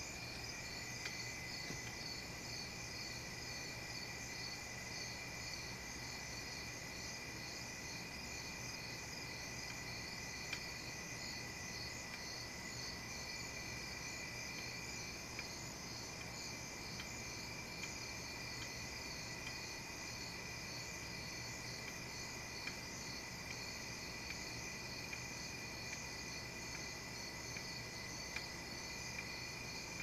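A steady, high-pitched chorus of chirping insects, with a faster pulsing trill above a continuous tone. A few faint clicks are scattered through it.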